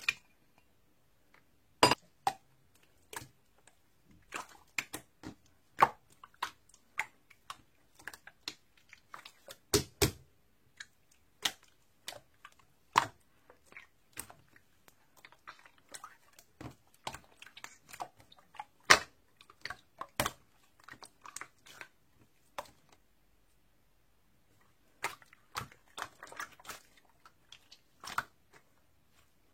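Crunchy chewing: irregular sharp crunches and clicks, with a pause of about two seconds near the end.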